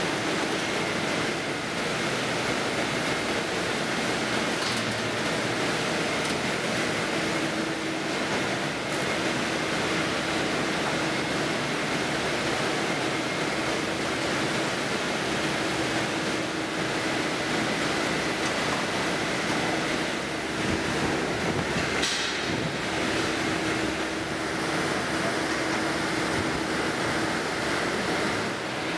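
Steady rushing machinery noise of a food-processing line, with the N&N Mixer Cooker 1600S's paddle agitator turning through minced meat. A faint held hum comes and goes, and there is a brief sharper noise about three-quarters of the way in.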